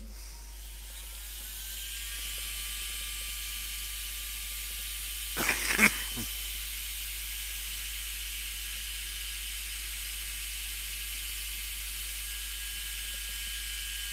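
Heat gun switched on, its fan whine rising over the first couple of seconds, then running steadily with an even hiss of air. A brief voice-like sound about six seconds in.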